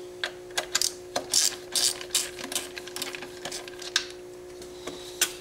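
Irregular metallic clicks and scrapes of a hand tool tightening an adjustable hose clamp on a power steering reservoir hose.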